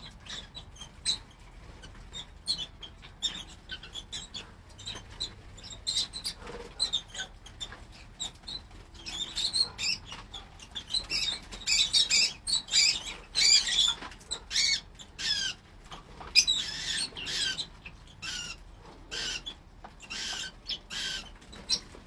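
Lovebirds chirping and chattering: a string of short, high-pitched chirps that grows into a busy burst of calls in the middle, then thins out again.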